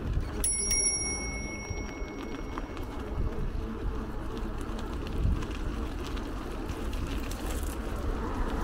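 Wind rumbling on the microphone and road noise from a bicycle ride. About half a second in there is a single bright, bell-like ding that rings for a second or two.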